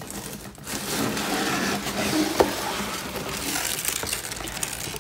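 Cardboard mailer box being opened by hand: the lid and flaps scrape and rustle, with one sharp click about two and a half seconds in.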